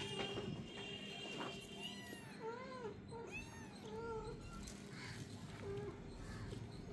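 Kittens meowing, short high cries that rise and fall in pitch, about one a second.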